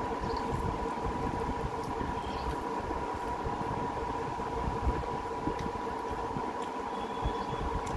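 Steady mechanical hum with a constant mid-pitched whine, under faint soft clicks and squishes of fingers mixing rice on a steel plate.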